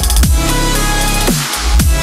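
Electronic dance background music with sustained bass and synth chords, punctuated by deep kick drums that drop sharply in pitch.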